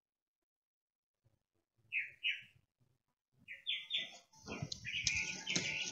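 A silent start, then a bird gives short chirps in pairs about two seconds in and again a little later. From just past halfway, loud rustling of sorrel calyxes and leaves being handled in the pile comes in, with the chirps continuing over it.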